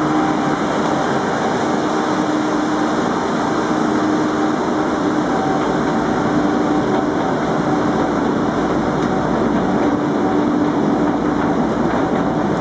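Scharf diesel-electric overhead monorail locomotive running steadily as it travels along its rail, a dense engine and running noise with faint steady tones in it.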